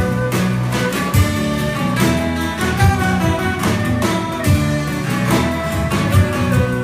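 Folk band playing an instrumental passage live, with no singing: strummed acoustic guitar, a plucked bouzouki, flute melody and drum kit keeping a steady beat.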